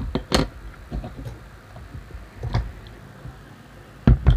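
Handling knocks on a plastic cutting mat: a quick cluster of taps and clicks as a small circuit board is set down, a few lighter taps and a dull thud, then two loud knocks near the end as a loudspeaker driver is put down.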